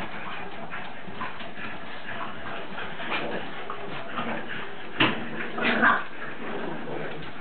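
French bulldogs and puppies whining and yipping, with two louder, sharp cries about five and six seconds in.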